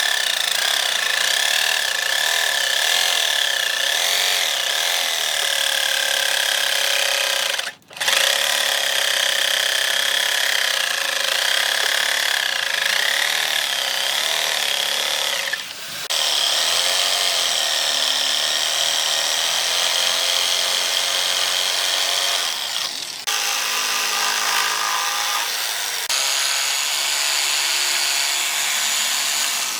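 Electric grinder grinding the steel of a knife blade cut from a brake disc, a steady whine that wavers in pitch as the pressure on the metal changes. It stops sharply for a moment about eight seconds in, then runs on.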